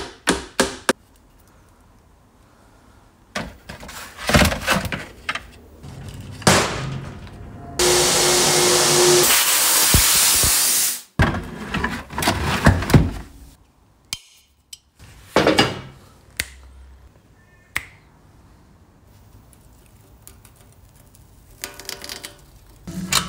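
Workshop handling noise from dismantling a motorcycle: knocks, thunks and clinks of tools and metal parts, with a quick run of ticks at the start. A loud steady hiss of about three seconds sits near the middle.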